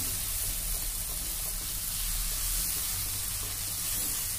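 Onion and ginger-garlic paste sizzling steadily as it fries in oil in a wok, while it is stirred with a silicone spatula.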